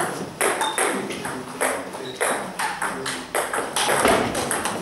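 Table tennis ball clicking sharply off bats and the table in a rally, a few hits every second, each with a short echo of the hall.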